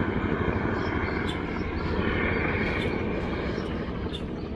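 Low-flying light helicopter passing, a steady rotor chop and engine drone that eases slightly toward the end.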